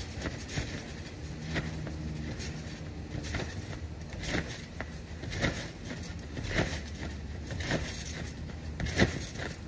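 Bouncing on a wet trampoline: a thump about once a second as feet land on the mat, the strongest near the end, over the steady hiss of a sprinkler spraying water onto it.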